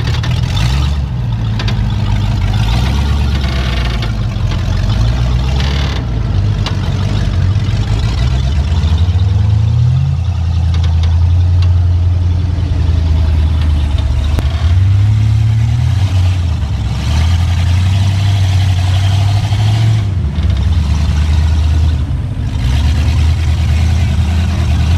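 Off-road vehicle engines running, the revs rising and falling several times as the throttle is worked on a climb.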